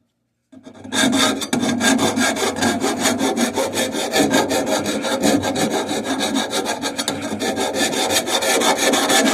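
Hand file scraping quickly back and forth over the cut end of a drain pipe, deburring the rough edge. The rapid strokes start about a second in and carry on steadily.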